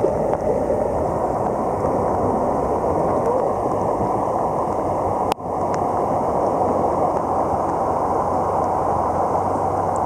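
River water rushing and swirling close around the microphone at the surface, a steady noise with a brief drop about five seconds in.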